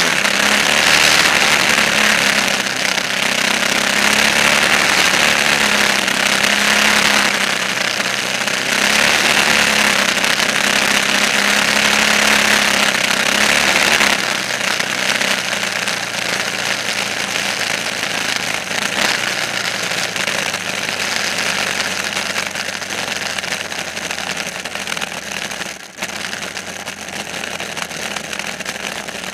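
An engine running steadily with a loud, rushing noise; it eases down somewhat about halfway through and dips briefly near the end.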